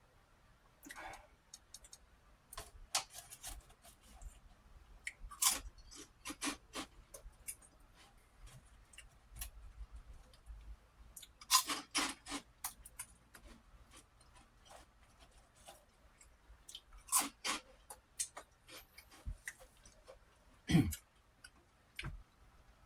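A man chewing prawn crackers close to the microphone: irregular crisp crunches, with louder runs of crunching about 5, 12 and 17 seconds in.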